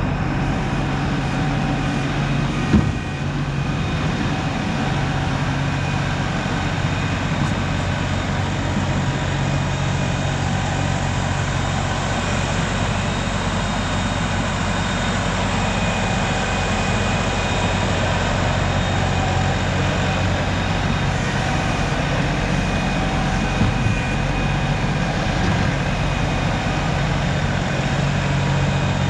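LS compact tractor's diesel engine running at a steady speed as it back-blades snow with its front loader, with one sharp knock about three seconds in.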